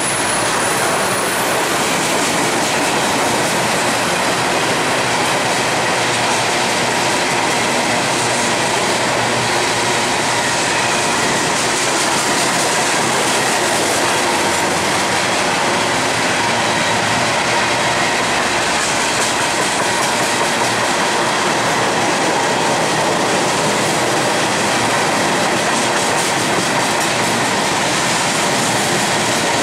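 Empty steel coal hopper cars of a freight train rolling past on the track, a steady rolling rattle and rumble with no breaks. A faint steady high tone runs under it.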